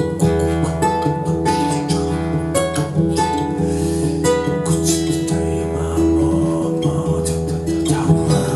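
Instrumental music on a plucked string instrument, most like an acoustic guitar, with notes picked and strummed in a steady flow.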